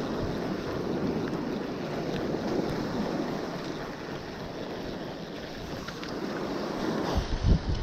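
Wind buffeting the microphone over waves washing on the beach, a steady rushing noise. A few low thumps come near the end.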